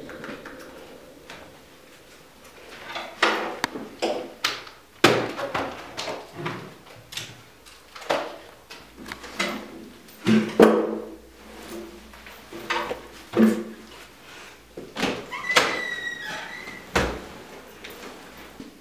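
Close handling noises in a small room: a long run of clicks, knocks and rustles as someone rummages through pockets and picks up a bag and jacket, then a short squeak and a heavy thud near the end as a door is opened.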